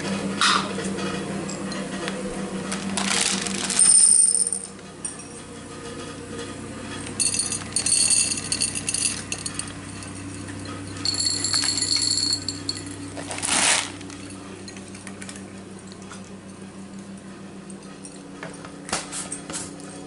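Dry cat food poured from a plastic jug into a cat's dish in several short bursts, the kibble rattling and clinking against the dish. A steady low hum runs underneath.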